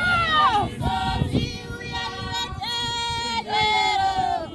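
Women's voices singing together, holding long notes that slide down at the end of each phrase. A low dull thud comes about a second in.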